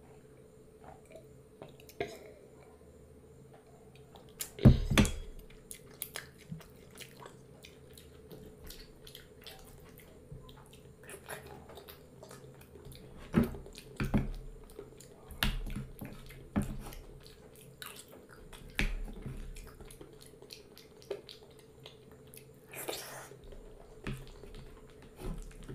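Close-miked eating sounds: a loud knock about five seconds in as the glass jug is set down on the wooden table, then chewing, lip smacks and small clicks of a spoon against a bowl.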